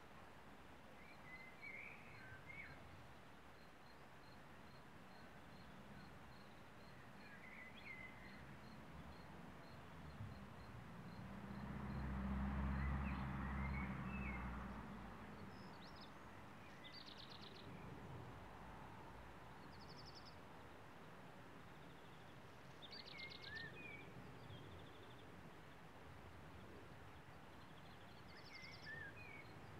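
Faint outdoor ambience with scattered short bird chirps and trills. About a third of the way in, a low humming rumble swells up, becomes the loudest sound, and then fades away.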